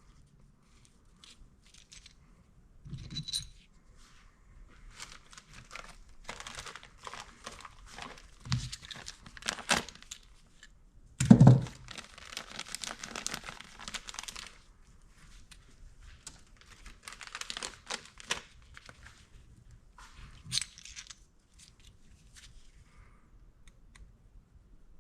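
Hands working oiled rubber O-rings into an Aprilia Tuono V4 cam cap and handling the metal parts: uneven stretches of rubbing noise with a few light knocks, the loudest about eleven seconds in.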